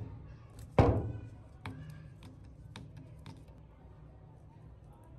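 A sharp knock about a second in, followed by a few light clicks of a screwdriver working a screw on the trigger switch inside an open plastic power-tool handle.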